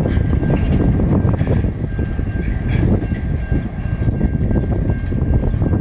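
Freight wagons of a diesel-hauled train rolling past, with a heavy rumble and irregular clicks and clanks from the wheels on the track. A faint steady high whine runs underneath.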